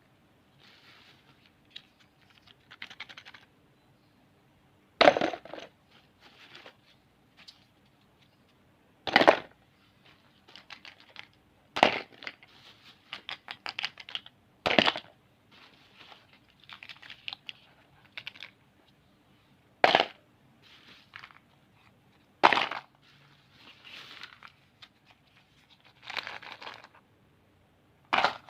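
Plastic candy wrappers and packets crinkling as they are handled, with a sharp knock every few seconds.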